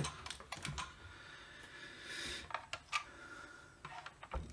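Light clicks and knocks from the plastic housing of a Milwaukee M18 six-bay battery charger being handled and tilted, with what may be something loose rattling inside, and a soft thump near the end.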